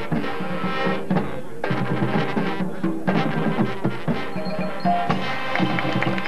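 Marching band playing on the field: sustained wind-instrument chords over a steady drumline beat.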